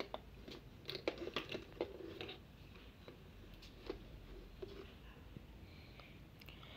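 Faint, irregular clicks and small rustles of a spoon and containers being handled while salt is measured into a bowl of flour.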